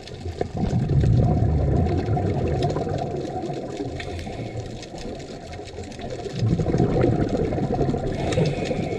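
Scuba diver's exhaled breath bubbling out of a regulator underwater, muffled and low. It comes in two long bubbly rushes, the first about half a second in and the second near the end.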